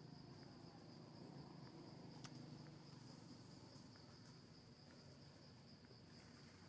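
Faint, steady high-pitched insect drone at one unchanging pitch, over low background hiss, with a single faint click about two seconds in.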